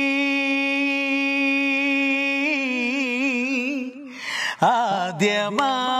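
A man singing a Malayalam film-song melody unaccompanied, holding the last note of the line in one long steady tone that wavers into vibrato about two and a half seconds in. After a short breath, he begins a new phrase with sliding pitch near the end.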